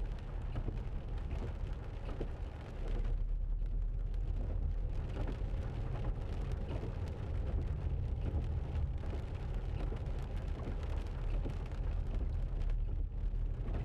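Cabin noise of a Land Rover Freelander 2 driving slowly on a wet road: a steady low engine and tyre rumble, heavier from about three seconds in, with many small ticks of rain on the windscreen.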